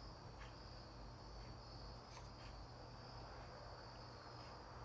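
Faint, steady high-pitched chirring of crickets and cicadas.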